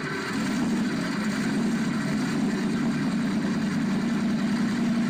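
An engine idling steadily, with an even low hum.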